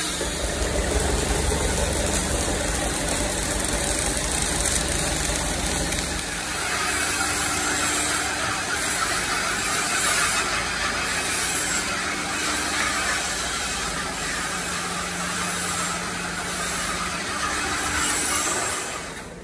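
Steady mechanical noise of a steel fabrication workshop: machinery running under a continuous hiss, with a low rumble for the first six seconds.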